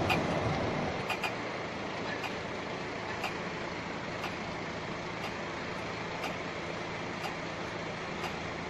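An SGP tram moving away, its running noise fading out within the first second, then steady street ambience with a short sharp tick repeating about once a second.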